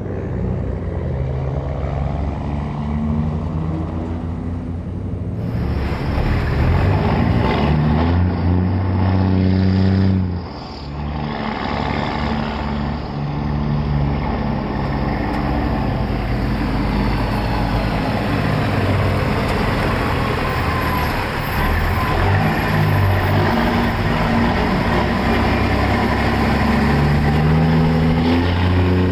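Peterbilt 379 semi truck's diesel engine pulling an oversize load, its pitch holding and then stepping as it works through the gears, with a brief dip about ten seconds in, over steady road and tyre noise.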